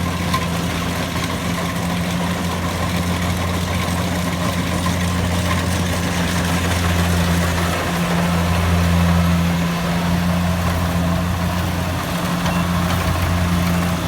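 An engine running steadily with a low, even drone that swells slightly a little past the middle.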